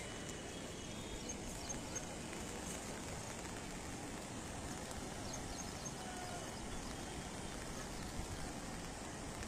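Steady rushing noise of a river in flood, fast brown water running high below an overflowing dam.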